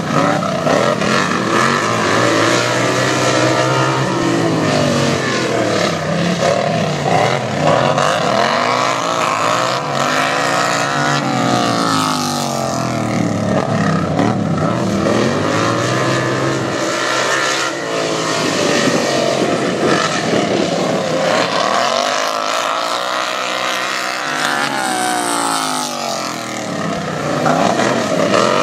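Engines of several racing lawn tractors running hard together, their pitch rising and falling in overlapping sweeps every few seconds as they accelerate and ease off.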